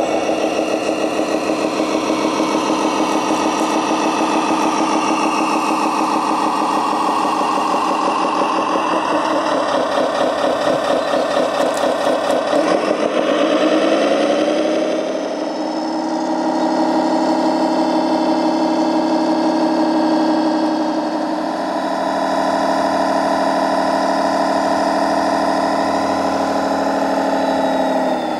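Motors of a model turntable-ladder fire truck running continuously, a machine whine whose pitch shifts several times as the ladder's movements change, with a rising glide about halfway through and a falling one near the end.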